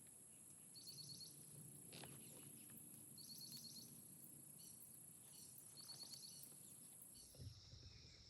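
Faint outdoor insect ambience: a steady high-pitched buzz of insects, with a short pulsed chirping phrase about every two and a half seconds. Near the end the high buzz stops and a lower-pitched steady trill takes over.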